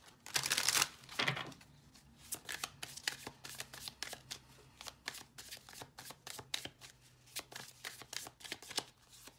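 A deck of cards being shuffled by hand: a run of rapid soft card flicks and riffles, with a couple of louder bursts in the first second and a half.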